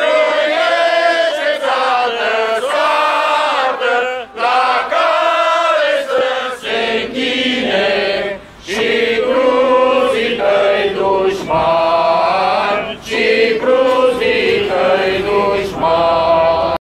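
Crowd of protesters chanting together in unison, in loud repeated phrases broken by short pauses.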